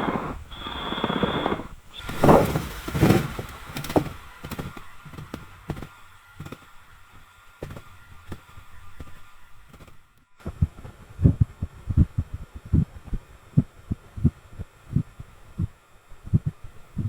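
Hotel lobby ambience. A high squeal and a cluster of knocks come in the first few seconds, then a quieter stretch. After a sudden break about ten seconds in, a steady run of soft thuds follows, about two or three a second.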